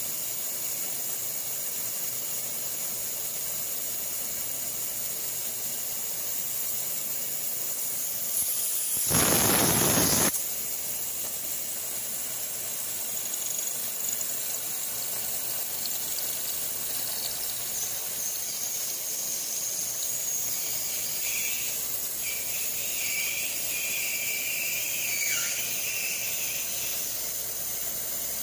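Milling machine end mill cutting a part held in a 3D-printed fixture, over a steady high hiss. About a third of the way in there is a short, louder burst of noise, and in the second half a high squeal rings for several seconds and dips in pitch as it ends.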